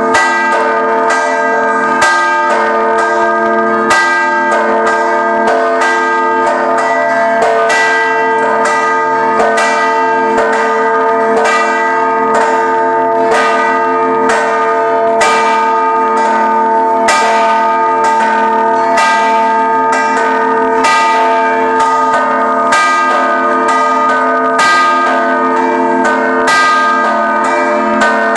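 Several church bells pealing together for a procession, struck in quick, continuous strokes with their tones ringing over one another.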